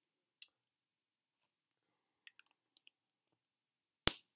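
Lipstick case being handled: a few faint ticks, then one sharp click near the end.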